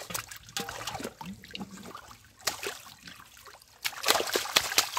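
Splashing and sloshing in shallow muddy water as a hand-caught fish thrashes while it is lifted into a metal pot, with a run of loud splashes about four seconds in.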